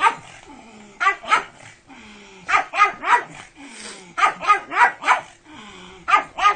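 Dog barking in short runs of two to four barks, with brief pauses between runs.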